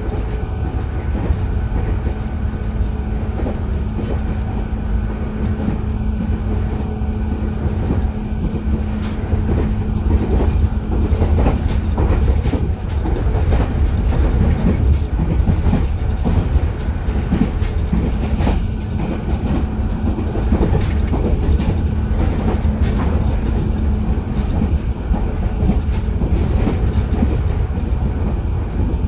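JR East 205 series electric train running, heard inside the car directly above its line breaker: a steady low running rumble with a hum, and wheels clicking over rail joints.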